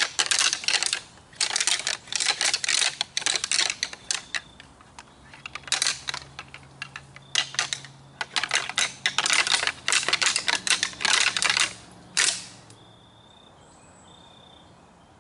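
Dense, irregular clicking and clattering of hard objects in bursts, stopping suddenly about twelve seconds in. After that it is quiet except for a faint, high chirp repeated a few times.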